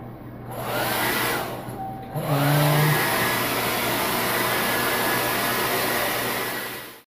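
Hand-held electric hair dryer blowing, its rush dipping twice in the first two seconds and then holding steady. It cuts off suddenly just before the end.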